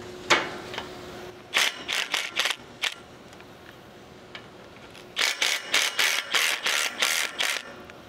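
Ratchet wrench loosening the bolts of a swivel pole mount, clicking in quick back-and-forth strokes. A single click comes first, then a run of about six strokes, a pause, and a run of about ten.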